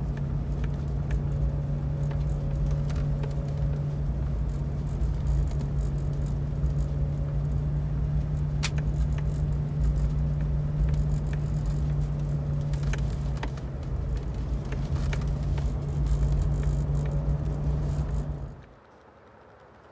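In-cabin sound of a 1997 Land Rover Discovery I driving at a steady cruise: an even engine drone with low road rumble and scattered light clicks and rattles. The sound drops away suddenly near the end.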